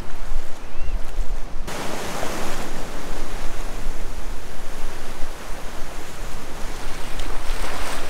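Ocean surf washing and rushing, with wind buffeting the microphone in a low rumble. The rush of the surf swells up suddenly a little under two seconds in and stays loud.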